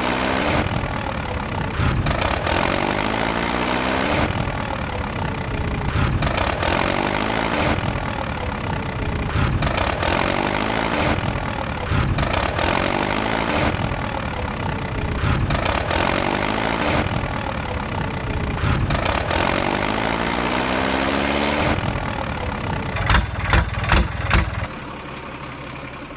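Engine sound effect of a truck idling and revving, the same short loop repeating about every two seconds. Near the end come four short loud bursts, then the sound drops to a lower level.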